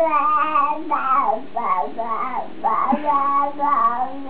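A baby vocalising in long, sing-song tones with no words: several drawn-out 'aaah' notes that slide up and down in pitch, the last one held low and steady.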